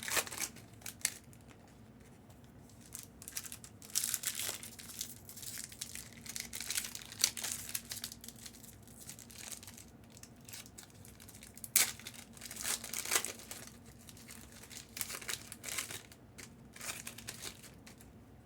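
Foil trading-card pack wrappers crinkling and tearing as packs are handled and opened, in irregular short bursts.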